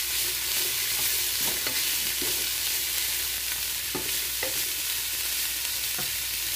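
Shredded cabbage, carrot and capsicum sizzling steadily in a nonstick wok, stirred with a wooden spatula that scrapes and taps the pan a few times.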